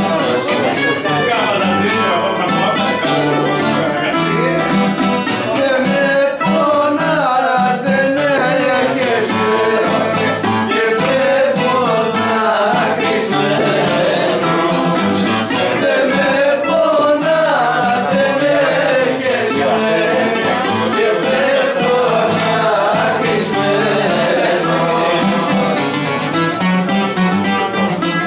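Live rebetiko music from a small acoustic group: a bouzouki and an acoustic guitar playing together, with voices singing the melody.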